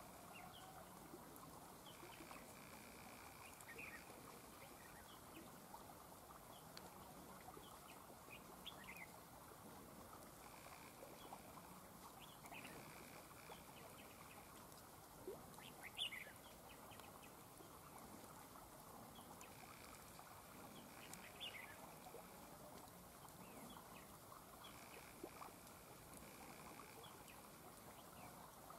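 Faint, short chirps of red-whiskered bulbuls, scattered through, with one louder call about halfway.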